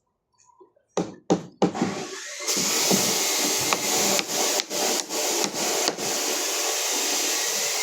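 A few sharp knocks, then a power tool starts and runs with a loud, steady noise, briefly dipping several times as it works.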